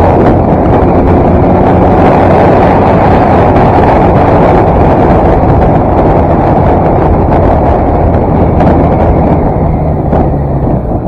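Wind blasting across the microphone of a Kawasaki ZX-10 sportbike riding at speed, over the steady drone of its inline-four engine. The wind noise eases a little near the end.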